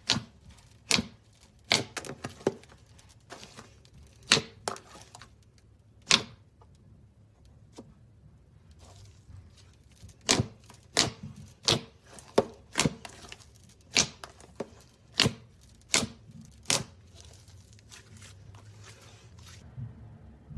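Slime being worked by hand, giving a string of sharp wet clicks and pops, roughly one a second, with a quieter pause in the middle.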